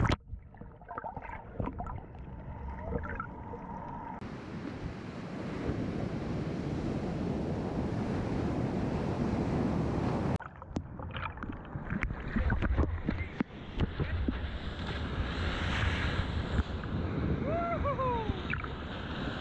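Seawater and breaking surf. For the first few seconds it is muffled, heard from underwater, with little treble. Then comes a steady wash of breaking waves, which cuts off about ten seconds in, followed by splashing and wind at the waterline.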